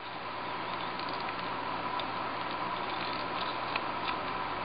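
Steady background hum and hiss with a few faint, irregularly spaced ticks.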